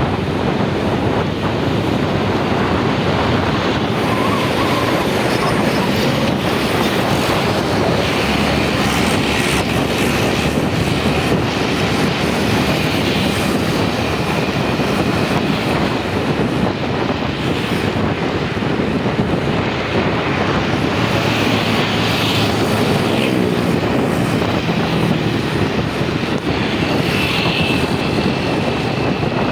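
Steady rumble of road and engine noise from a moving vehicle, with a faint high tone that comes and goes.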